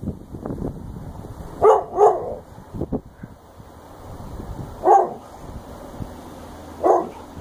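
Alaskan Malamute barking: two quick barks about a second and a half in, then single barks near the middle and near the end.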